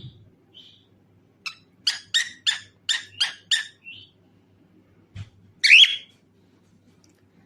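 Pet cockatiel calling: a rapid run of about seven sharp chirps, roughly three a second, then a louder call with a rising glide about six seconds in, the loudest sound here.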